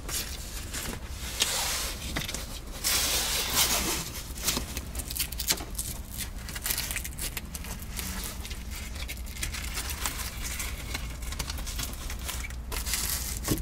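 Velcro straps on a canvas car soft top being wrapped around the header bows and pressed together, making rasping rips and fabric rustling in bursts, loudest about three seconds in and near the end.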